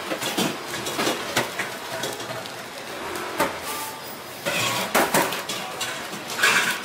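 Kitchen clatter: scattered sharp knocks and clinks of metal pans and utensils, several in a row about a second apart, with a denser cluster of knocks near the end.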